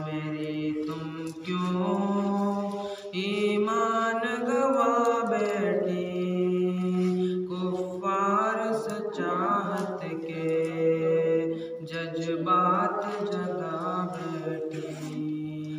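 A man's voice singing an Urdu nazm solo into a microphone, without accompaniment. He holds long, wavering notes and slides between them in a chant-like melody.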